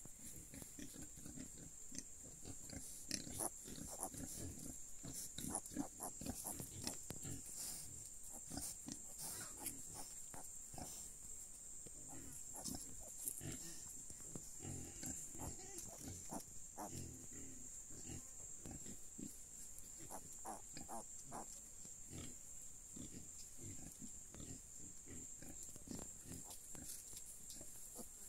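Pigs grunting: many short, low grunts, coming thickest through the middle of the stretch.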